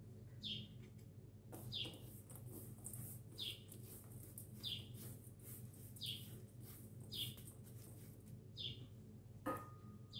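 A bird chirps faintly and repeatedly, one short high note about every one and a half seconds. Under it are a soft rustle of dry ingredients being stirred and a light clink on the steel mixing bowl near the end.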